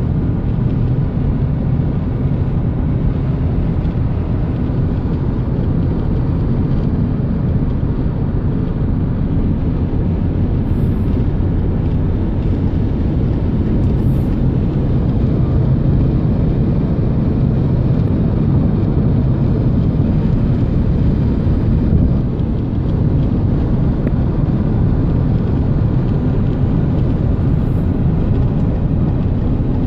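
Steady low rush of wind and road noise from a 2015 Subaru Outback at driving speed: the wind noise that the owner sets out to document.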